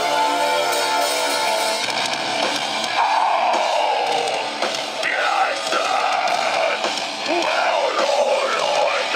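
Live metalcore band playing loud: a held note rings for about the first two seconds, then the full band comes in heavy with distorted electric guitars and drums.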